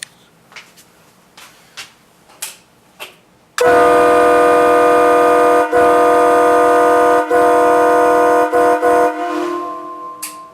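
Train horn blown in one loud blast of about five seconds, several notes sounding together as a chord, with two brief breaks and a few quick stutters near the end before it fades, ringing on in the basement. A few faint clicks come before it.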